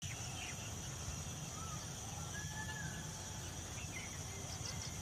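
Outdoor ambience: a steady high-pitched insect drone with a few short bird chirps scattered through it, over a continuous low rumble. No clack of horns stands out.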